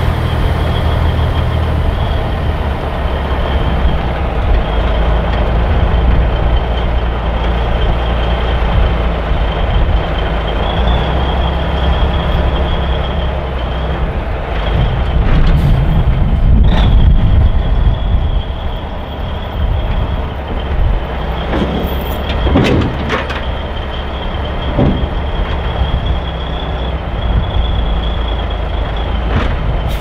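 Diesel engine of a 1984 Peterbilt 362 cabover running steadily as the tractor backs slowly under a detached-gooseneck lowboy trailer, with a thin steady high whine over the rumble. A few short sharp sounds come about halfway through and again a little later.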